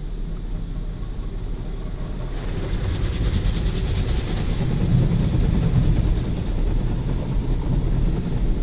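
Automatic car wash heard from inside the car: water and foam spraying against the windshield over a steady low rumble. The spray hiss swells about two seconds in and stays strong through the middle.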